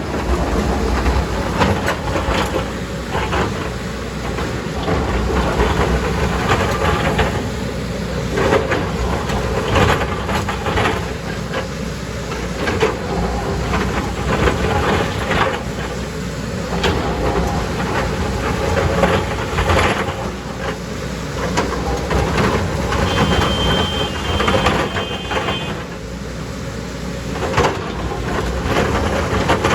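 Heavy JCB excavator's diesel engine running under load while digging, with irregular knocks and clatter of rock and soil against the bucket. A short high beeping sounds about three-quarters of the way through.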